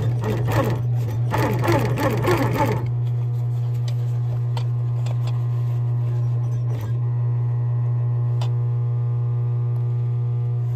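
Industrial sewing machine stitching through the leather of a jacket seam: a steady motor hum with a higher, even running tone. A few sharp clicks come from the machine partway through.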